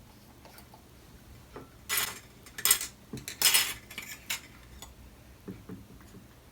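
Metal measuring spoons clinking and rattling against each other as they are handled, in a few short bursts around the middle.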